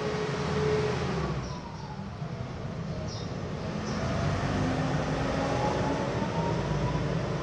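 Steady low rumble of a vehicle engine running, with faint, drawn-out yowls that slide up and down in pitch from cats squaring off: territorial caterwauling.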